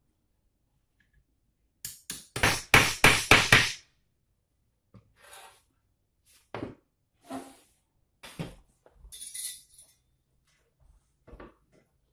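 A quick run of about six sharp knocks, like hammer blows, about two seconds in, followed by scattered lighter knocks and clatter.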